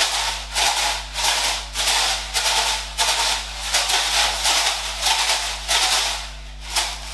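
Dry rice rattling inside a plastic Tupperware box shaken by hand as a homemade shaker, in repeated strong shakes about twice a second.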